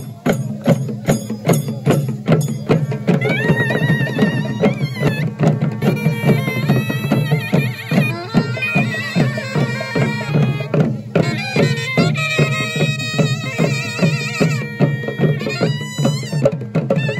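A group of thavil drums playing a fast, rhythmic festival beat together. A high, wavering reed wind-instrument melody joins the drums about three seconds in and continues over them.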